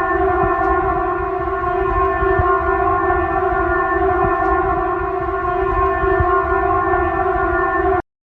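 Civil-defence warning siren sounding one long steady tone, which cuts off suddenly about eight seconds in.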